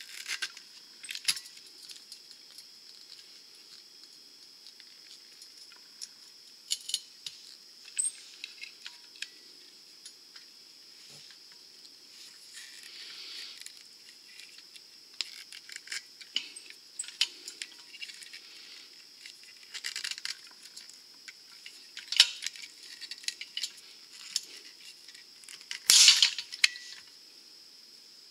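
A hand pop-rivet tool is squeezed over and over, giving small metallic clicks and crunches as it draws up a blind rivet in the control arm's bracket. Near the end comes a loud, sharp snap as the rivet's mandrel breaks off, which means the rivet is set.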